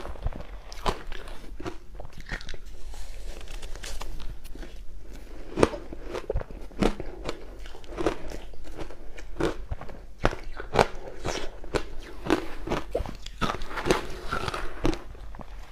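Close-miked crushed ice being bitten and chewed: a steady run of sharp, irregular crunches.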